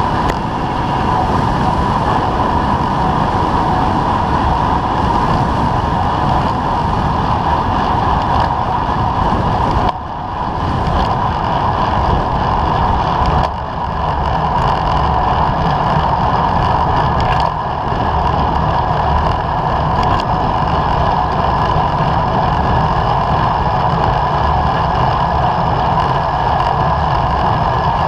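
Steady wind rush and road rumble on a bike-mounted action camera while cycling on asphalt, with brief lulls about ten and thirteen seconds in.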